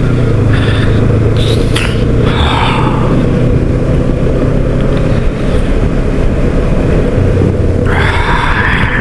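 Steady, loud rumble of wind buffeting the microphone over the low, even drone of a Kawasaki Ninja 300 motorcycle engine.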